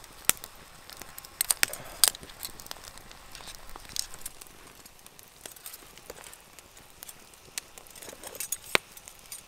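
Wood campfire crackling, with sharp pops scattered through it; the loudest come in a cluster around one and a half to two seconds in and once near the end.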